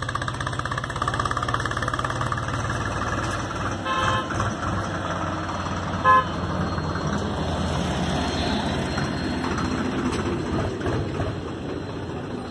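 A motor vehicle's engine running, with two short horn toots about four and six seconds in, the second louder; after the toots the engine sound turns to a rougher rumble.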